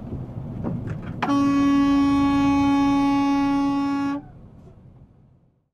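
A vehicle horn sounds one long steady blast of about three seconds, starting about a second in, over road and engine noise. The horn cuts off sharply and the road noise fades away.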